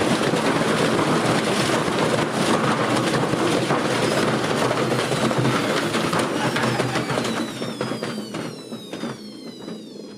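A washing machine being destroyed: a loud, continuous clattering and banging racket. About six seconds in, the racket fades and a whine falls in pitch.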